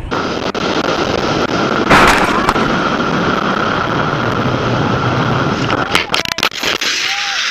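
Heavy wind and road noise on a motorcycle rider's on-board camera, with a loud bang about two seconds in. Around six seconds in comes a quick cluster of knocks and scrapes as the motorcycle goes down in a crash.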